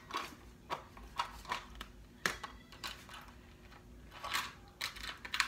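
Hands rustling and crackling through thick curly hair close to the microphone as a section is twisted back and pinned with a bobby pin: irregular short crackles, with a denser run near the end.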